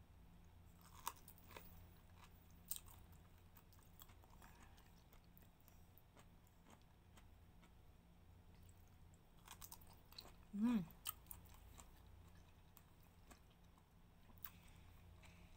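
Faint chewing and biting of okra pods, with a few soft sharp clicks in the first few seconds. About ten and a half seconds in comes a brief voiced sound, falling in pitch.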